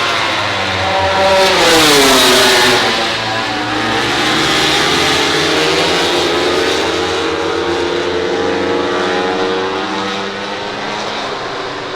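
MotoGP race motorcycles' four-cylinder engines at speed. One passes close, loudest about two seconds in, with its pitch dropping as it goes by. Then the engine note climbs steadily as a bike accelerates.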